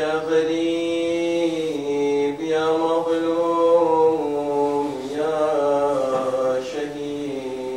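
A man's solo voice chanting in long, drawn-out melodic phrases, holding notes that slide up and down between short breaths: Arabic religious recitation in a melodic style.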